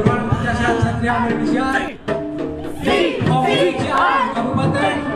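Music with held instrument notes and singing voices, the voices growing stronger about three seconds in.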